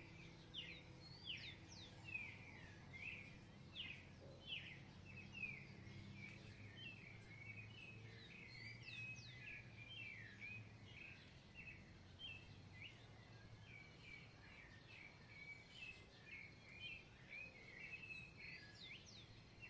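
Several birds chirping and singing in quick, overlapping calls, a dense chorus of short sweeping notes, faint throughout.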